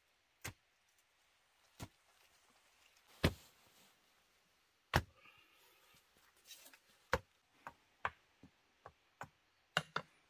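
A series of about a dozen sharp knocks or chopping strikes, irregularly spaced and coming faster in the second half.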